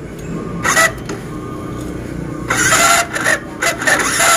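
Motorcycle electric starter motor cranking with a harsh, snoring-like grinding noise. There is a short press a little under a second in, then a longer run of several pulses from about two and a half seconds. The noise comes from the starter motor's dry bushing at the end of its shaft, which needs grease.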